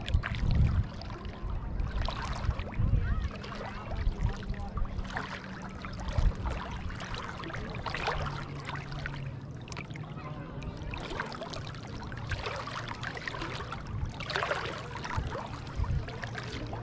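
Shallow seawater lapping and splashing close by in uneven bursts, over a low rumble.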